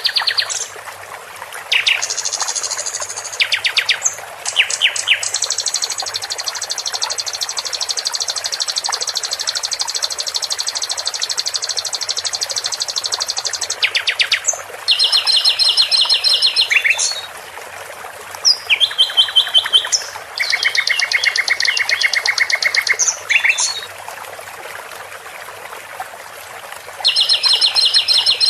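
Songbird song of the kind played as masteran to train contest birds: a series of rapid, high, rattling trills and repeated chattering phrases with short pauses between them. One long, even trill runs for about nine seconds.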